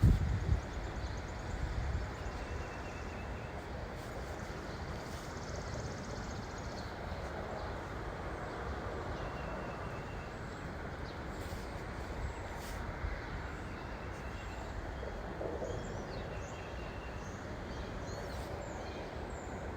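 Wind blowing across the microphone, a steady low rumble, with faint bird chirps here and there.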